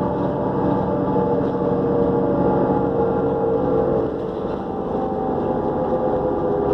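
New Flyer D40LF diesel transit bus under way, heard from on board: steady engine drone with a turbocharger whine. The whine's pitch sinks slowly over the first few seconds, dips in level about four seconds in, then climbs again near the end.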